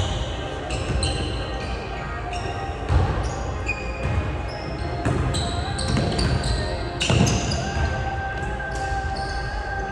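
A basketball being dribbled on a hardwood gym floor, with repeated thuds, while sneakers squeak sharply in short bursts as the players cut and drive.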